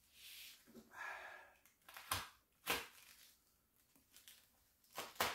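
Duct tape being pulled and torn off a padded package in several short, sharp rips, with the wrapping rustling in between.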